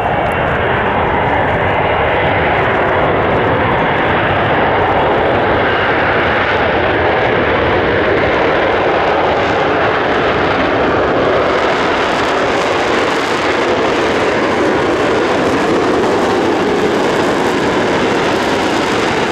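Jet noise from an RAF F-35B Lightning II's F135 turbofan engine, loud and steady throughout. A harsher hiss builds from about twelve seconds in.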